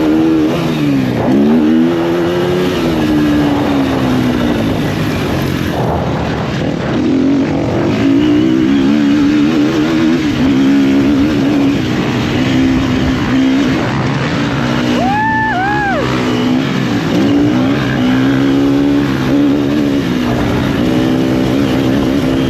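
Motocross bike engine running hard on track, its pitch rising and falling again and again as the rider revs, shifts and backs off through the course.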